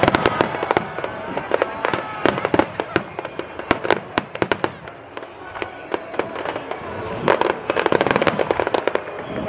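Aerial fireworks bursting and crackling: volleys of sharp pops and crackles from glittering star shells come in dense clusters near the start, around the middle and near the end.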